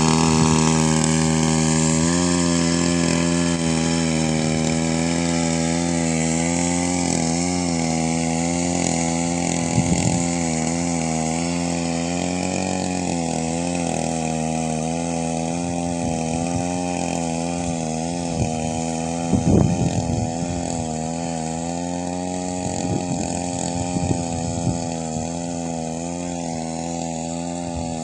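Small petrol engine of a walk-behind paddy power weeder running steadily under load as it works between rice rows, its pitch wavering slightly and growing a little fainter as it moves away. A few brief knocks come about 10 and 19 seconds in.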